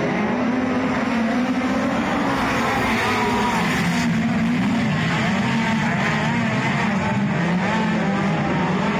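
Several speedway race cars running at high revs around a dirt oval, a continuous loud engine drone whose pitch wavers up and down as they circle the track.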